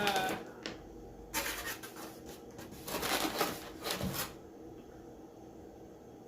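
Rustling and rubbing handling noise in two bursts of about a second each, the first about a second and a half in and the second about three seconds in, then faint room tone.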